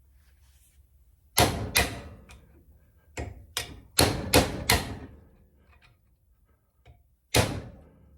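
Hammer blows on metal, about seven sharp strikes in quick succession and then one more near the end, each ringing briefly: knocking the clutch pin out of a 1972 VW Super Beetle pedal assembly.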